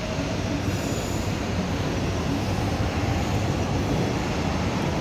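Series 7500 electric train approaching along the track, a steady rail rumble that grows slightly louder.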